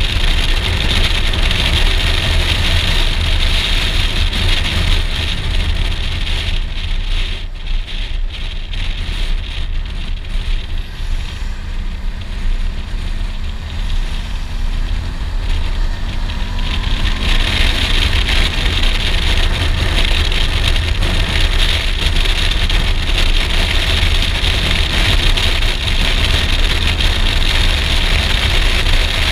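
A Suzuki V-Strom DL650XT's V-twin engine running under heavy wind noise on the rider's helmet microphone. The wind eases for several seconds in the middle as the bike slows, and the engine note rises as it pulls away; then the wind builds again as speed picks up.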